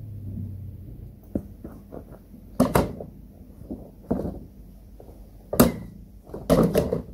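Five or so irregular knocks and thumps, the loudest two a little under three seconds apart, after a low hum that fades out about a second in.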